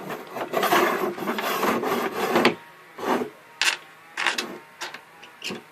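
A clamp pin scraping and rubbing as it is worked into a sleeved hole in a workbench top: about two and a half seconds of continuous scraping, then several short separate scrapes or knocks.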